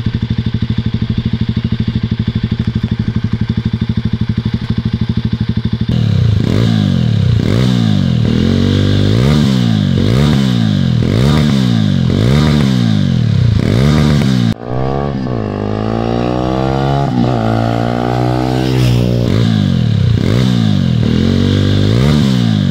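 A Jawa Perak's single-cylinder engine running through an aftermarket 'Cruiser' dual-silencer exhaust, idling steadily, then revved with repeated throttle blips that rise and fall about once a second. After a brief break about two-thirds through, it is revved again in quicker sweeps, super loud.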